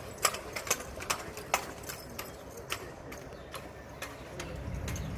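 Sharp clacks and taps at uneven intervals from a ceremonial drill formation's heel strikes and equipment, most of them in the first second and a half and fewer after. A low hum rises near the end.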